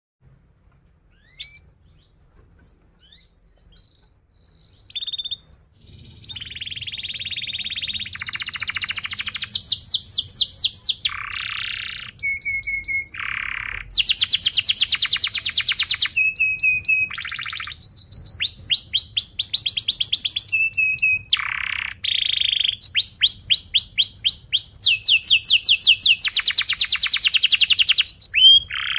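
Domestic canary singing: a few scattered chirps, then from about six seconds a long, near-continuous song of fast rolls of rapidly repeated notes and rising sweeps, broken by short steady whistled notes.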